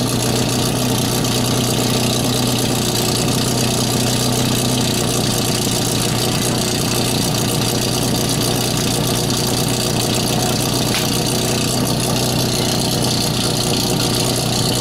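Small engine of a portable fire pump running steadily, with no pauses.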